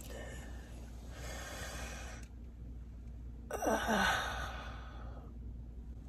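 A woman's breath followed by a drawn-out vocal sigh that falls steeply in pitch, about three and a half seconds in.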